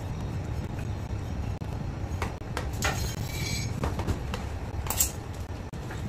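A metal palette knife and a plastic scraper clinking and scraping against a cake turntable and a tub of whipped cream while icing is smoothed, a few light clicks and a short scrape, the sharpest click about five seconds in, over a steady low hum.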